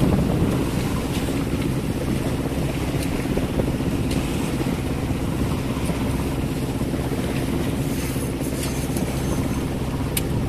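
A sailing yacht's inboard engine running steadily with a low drone, under wind buffeting the microphone and the wash of choppy waves.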